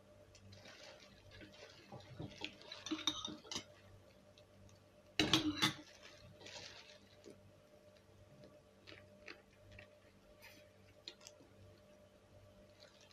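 Crab shell being picked and cracked apart by hand in plastic gloves: soft crackling and clicking, with a short cluster of loud sharp cracks about five seconds in, then scattered small clicks.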